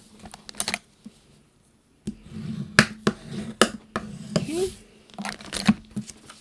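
Clicks and taps of card stock and craft tools being handled on a work surface: a few near the start, then a busier run of them from about two seconds in.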